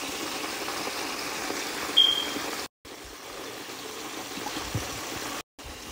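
Crawfish cooking in broth and sauces in a pot, a steady bubbling sizzle. A brief high squeak sounds about two seconds in, and the sound cuts out for a moment twice.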